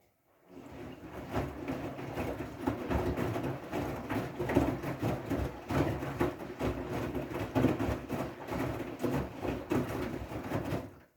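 Siemens washing machine running its wool/delicate programme: the drum turning with a steady low hum and irregular swishing. It starts about half a second in and cuts off abruptly near the end.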